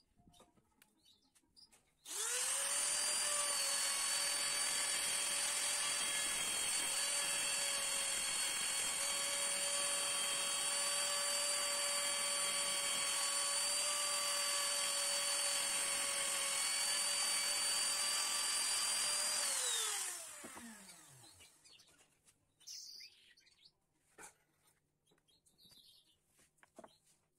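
Compact trim router switching on about two seconds in and running at a steady whine for about eighteen seconds while routing bowtie-shaped recesses for butterfly keys into a wooden stool seat, then switched off and spinning down with a falling pitch. A few faint clicks follow.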